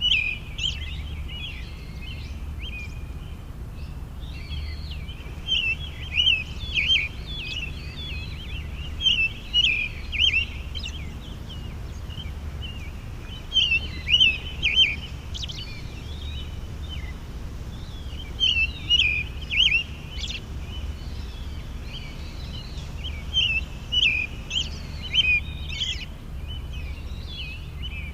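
A songbird singing in short, quick, chirping phrases, repeated every few seconds with pauses between, over a steady low rumble.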